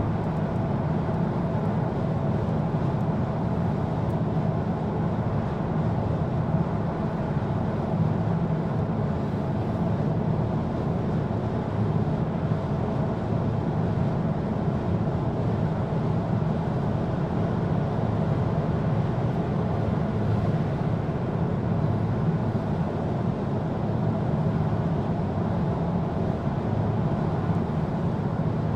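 Steady road and engine noise inside a car cruising at motorway speed, a low, even rumble that does not change.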